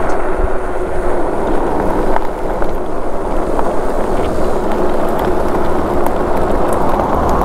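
Steady rushing road and wind noise of a Super73 S2 electric bike being ridden along, with a faint steady tone underneath.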